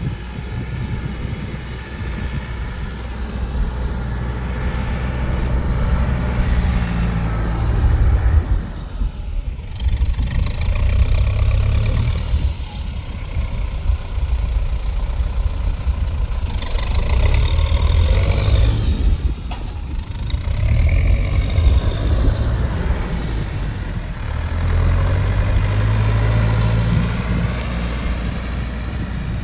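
A heavy engine running, its pitch shifting up and down as its speed changes, with a few brief hisses.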